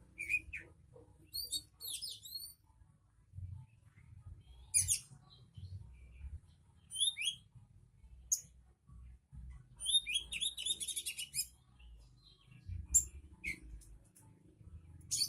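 Songbird calling in short, high chirps and whistled notes, with a fast rattling trill about ten seconds in.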